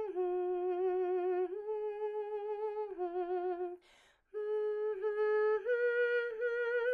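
A woman humming a slow so-mi melody without words, each note held steady and alternating between two pitches, with a breath about four seconds in. Near the end the tune steps up to a higher note, la, the new 'mystery note' above so and mi.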